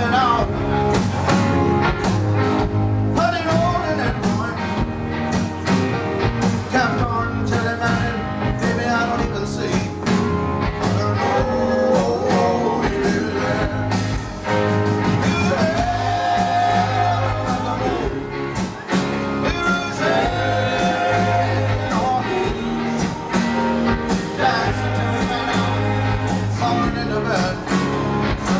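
Live band performance: a male lead vocalist singing over electric guitars, heard from among the audience.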